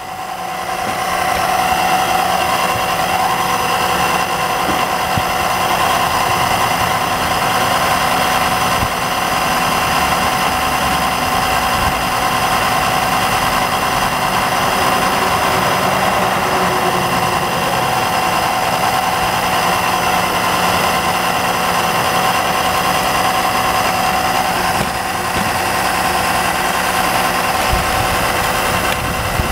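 Fluid extraction pump running steadily with an even mechanical hum, drawing the last of the old CVT fluid out from above near the end of the drain.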